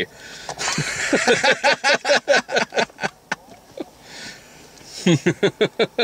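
Men laughing: a run of quick, breathy bursts of laughter, a quieter lull around the middle, then another run of laughs near the end.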